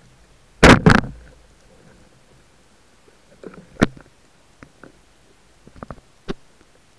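Wooden band-powered speargun fired underwater: a loud double crack about a second in as the shaft is released and spears a sea bass. Scattered sharp clicks and knocks follow.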